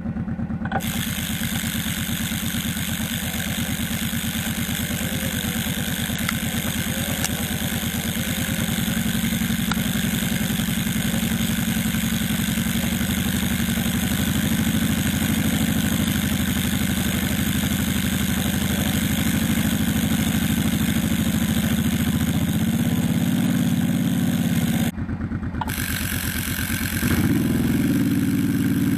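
ATV engine running at a low, steady pace. The sound breaks off briefly about 25 seconds in, then comes back a little louder.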